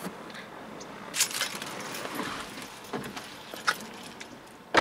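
Car keys jangling and scattered handling clicks as a person climbs into a car through the open driver's door, with a loud thump near the end.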